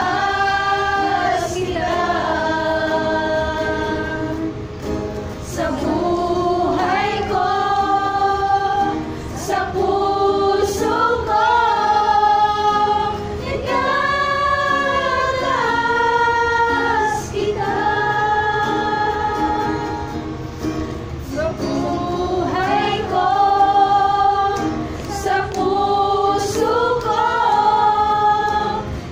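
A group of women singing a worship song together, in long held notes.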